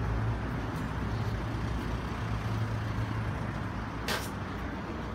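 Street traffic: a steady low engine hum from a passing or idling road vehicle over general road noise, with one short hiss about four seconds in.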